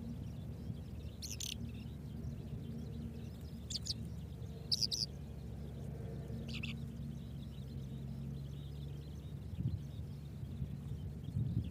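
Four short, high bird chirps, spread through the first half, over a steady low hum.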